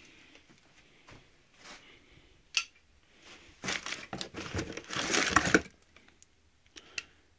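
A hand rummaging in a box of brass ceiling-fan blade irons packed in crumpled paper: paper crinkling and rustling, loudest for about two seconds past the middle, with a sharp click of metal a little before.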